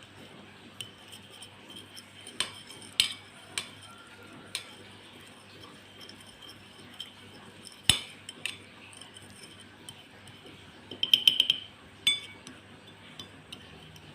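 Scattered clinks of a metal utensil against dishware, with a single sharp knock a little before the middle and a quick rattle of clinks near the end.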